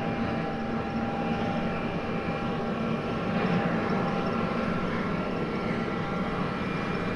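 John Deere T670i combine harvester running while harvesting: a steady machine drone with a few thin, unchanging whining tones.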